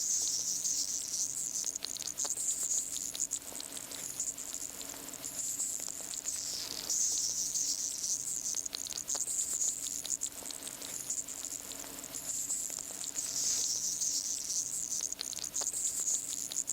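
A single manicou crab hissing and creaking from its mouthparts: a dense, high crackling hiss made of many fine clicks, swelling and easing in waves every few seconds.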